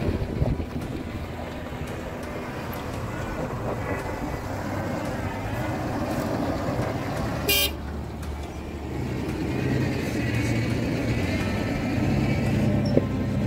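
Toyota Land Cruiser 70-series pickup's engine running under load as it climbs a loose sandy track, growing louder in the last few seconds. A short horn toot sounds about halfway through.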